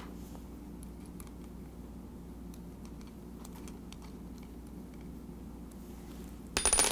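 Light clicks and ticks of small screws, washers and an Allen wrench being handled on a metal rail bender. Near the end comes a brief, louder metallic clatter.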